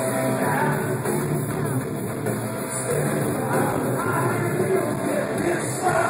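Hard rock band playing live through a concert PA, with distorted electric guitars and a sung vocal line, picked up loud by a phone microphone in the crowd.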